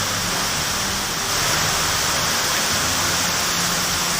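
Heavy rain pouring steadily in strong wind, a dense even hiss with a low rumble underneath, growing slightly louder about a second in.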